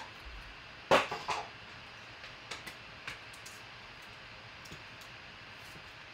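Trading cards and plastic card holders being handled and set down on a tabletop: one sharp clack about a second in with a couple of lighter knocks right after, then a few faint ticks and taps over a steady low hiss.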